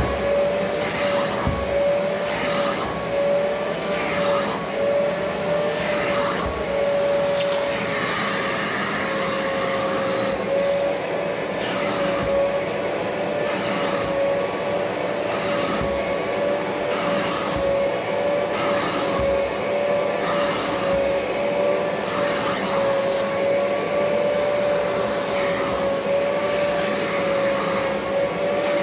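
Upholstery spray-extraction cleaner's vacuum motor running with a steady whine. The hand nozzle is drawn across a fabric chair cushion, adding a rush of suction with each stroke, about every second or two.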